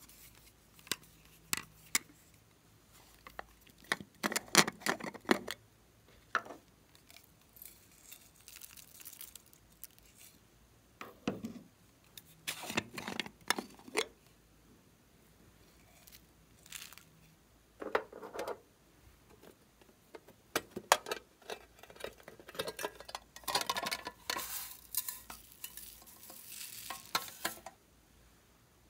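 Small plastic containers clicking and knocking as they are handled and opened, with short bursts of rattling and pattering as little pieces are tipped out into a glass dish.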